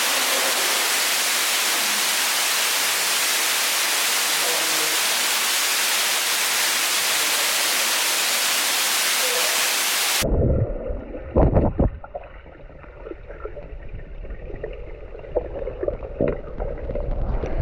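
Steady, loud rushing of a waterfall for about ten seconds, then an abrupt cut to a muffled, quieter sound with a few heavy thumps soon after.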